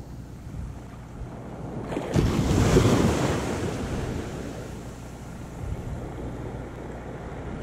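Small surf wave breaking and washing up over the sand: the rush swells about two seconds in, then fades slowly as the foam spreads. Wind rumbles on the microphone throughout.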